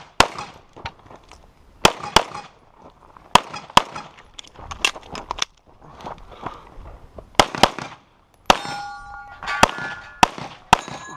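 A competition pistol firing a fast, irregular string of shots. Over the last few seconds, hits on steel targets ring with a clear, lingering clang.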